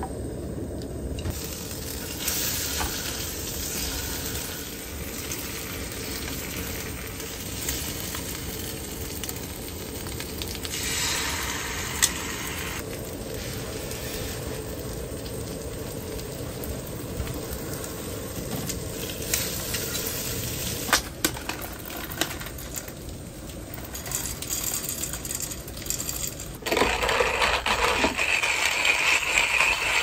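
Slices of bread frying in a small frying pan on a portable gas burner: a steady sizzle with a few sharp clinks. Near the end a hand-cranked coffee grinder starts grinding, a louder rasping sound.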